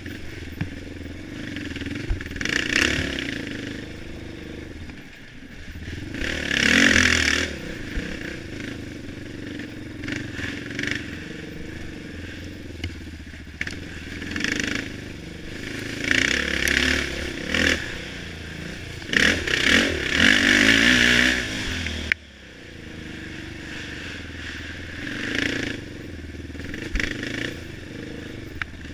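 ATV engine running under the rider's throttle, swelling in several loud revving bursts and dropping back, with clatter and scraping from the machine bouncing over the rough trail. The engine drops off sharply a little past the two-thirds mark.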